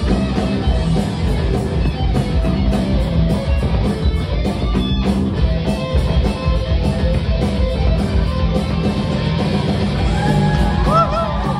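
A junior band of kids playing hard rock: electric guitar over drums with steadily repeating cymbal hits, and a few bending, wailing notes near the end.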